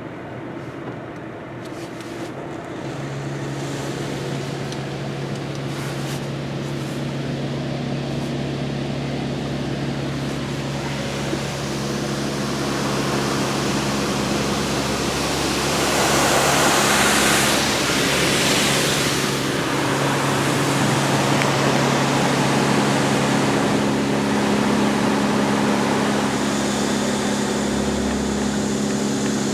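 Belanger Kondor automatic car wash running: pump motors hum steadily while water jets spray over the car, the spray hiss swelling to its loudest a little past halfway.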